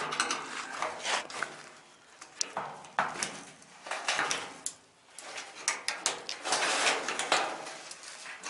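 Metal parts from a stripped clothes dryer being handled and shifted, with repeated clanks, knocks and scraping.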